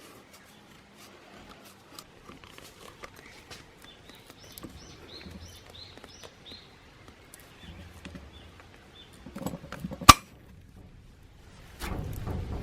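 Scattered light clicks and clinks of small hard objects, with one sharp, loud click about ten seconds in. A bird chirps a quick run of short high calls before the middle.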